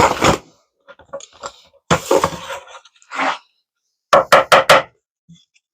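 Wooden dowels being knocked into drilled holes in a beam: a few scattered knocks, then four quick hard hammer blows about four seconds in.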